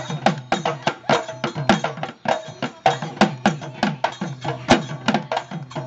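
Two-headed barrel drum (dhol) beaten in a fast dance rhythm, several strokes a second: sharp slaps over deep strokes whose pitch drops after each hit.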